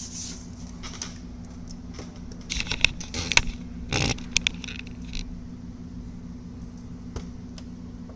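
Rattling and several sharp clicks from things being handled, bunched about two and a half to four and a half seconds in, with one more click near the end, over a steady low hum.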